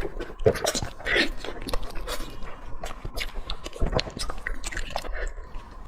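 Close-miked chewing of braised pork trotter, with a stream of irregular wet clicks and crackles from the mouth.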